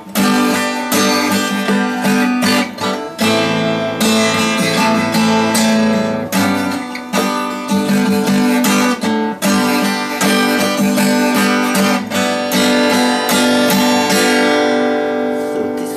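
Acoustic guitar strummed in steady rhythmic chords; near the end a final chord is left ringing and fades.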